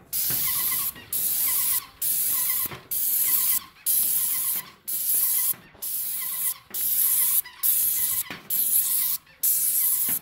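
Airless paint sprayer (Titan 440) spraying paint through the gun's tip with a loud hiss. The hiss comes in about eleven bursts, each roughly a second long, with short sharp breaks between them.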